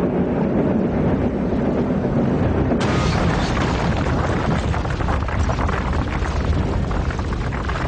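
Heavy rumbling of a large rolling boulder. About three seconds in there is a crash, and the rumble carries on, louder in the highs and mixed with a hiss of scattering debris.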